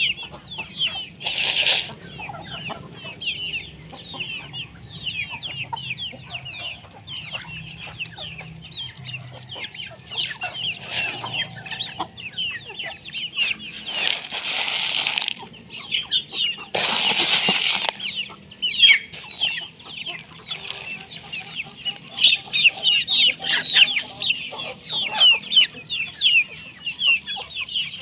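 A flock of native chickens calling: a dense, continuous chatter of short high peeps and chirps with clucking underneath. Three louder rushes of noise cut through it, one brief near the start and two longer ones around the middle.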